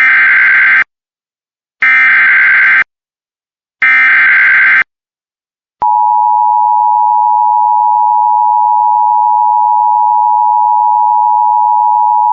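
Emergency Alert System SAME header: three identical one-second bursts of screechy digital data, encoding a severe thunderstorm warning, are followed about six seconds in by a single loud, steady attention tone.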